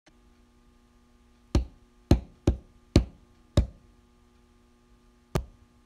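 Six sharp knocks with a low thump and a short ringing tail, five in quick uneven succession and one more a couple of seconds later, over a faint steady hum.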